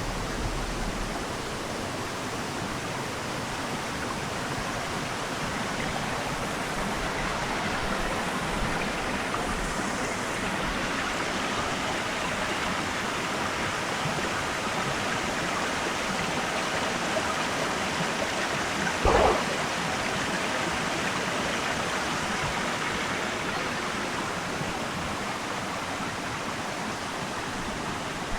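Spring-fed stream flowing steadily with an even rush of water. A single short knock about two-thirds of the way through is the loudest sound.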